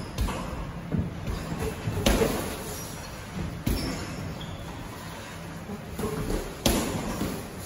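Boxing gloves landing punches during sparring: a handful of sharp thuds at irregular intervals, the loudest near the end.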